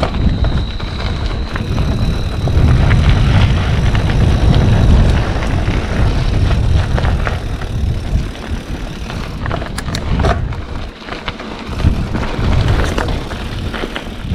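Mountain bike riding along a dirt trail: a heavy rumble of wind on the action camera's microphone and tyres on the ground rises and falls, with scattered clicks and rattles from the bike over the dirt. A steady high cricket trill is heard faintly at first and fades out about a second and a half in.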